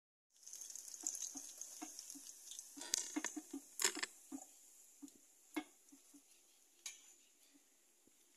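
Hot oil sizzling in an iron wok as battered banana pieces deep-fry, with a metal slotted spoon clinking against the pan a few times as the pieces are lifted out. The sizzle fades toward the end as the pan empties.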